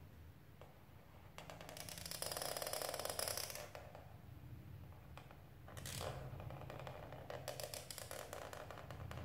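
Black marker pen tip scraping across paper in two long drawn strokes, the first starting about a second and a half in and the second about six seconds in.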